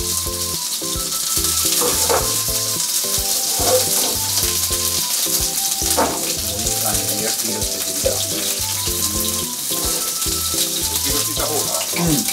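Cubes of nagaimo sizzling in olive oil in a frying pan over high heat, a steady hiss, with background music playing over it.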